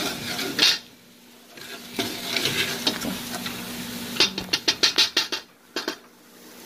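Wooden spoon stirring and scraping through a metal pot of frying stew base, with sizzling underneath. About four seconds in comes a quick run of about eight sharp taps of the spoon against the pot.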